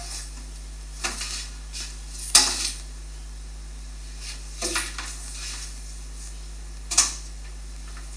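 Scattered sharp knocks and clatters of hard parts being handled, four main ones a second or two apart, the loudest about two and a half seconds in, over a steady low hum.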